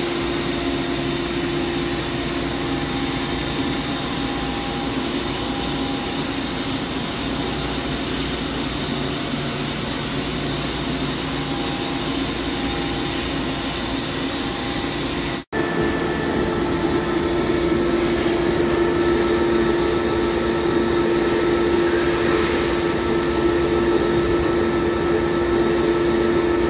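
Heavy CNC lathe running, a steady machine hum with constant tones and no strokes or knocks. It breaks off abruptly about halfway through and picks up again slightly louder, with one steady tone standing out more.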